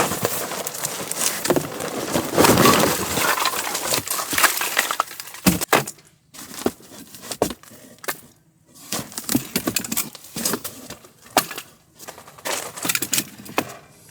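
Rustling and crinkling for about the first five seconds, then a run of separate knocks and clunks: a cardboard box of split firewood being opened and the logs handled.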